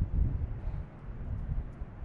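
Wind buffeting the microphone: an uneven, gusty low rumble that rises and falls.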